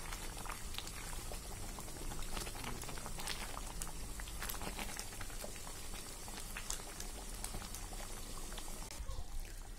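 Thick jauzi halwa mixture, with ghee just added, boiling hard in a kadhai: a steady crackle of many small bubbles popping.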